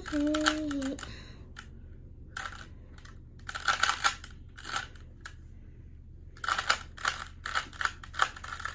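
Plastic Rubik's-brand 3x3 cube being turned by hand: bursts of rapid clicking layer turns separated by short pauses. It opens with a brief held low hum.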